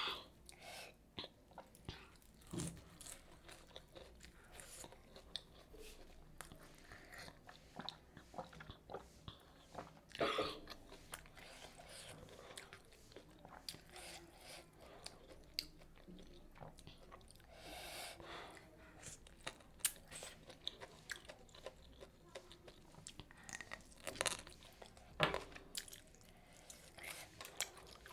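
A person chewing and biting food close to the microphone, with crisp crunches scattered throughout. There are louder bites about ten seconds in and twice near the end.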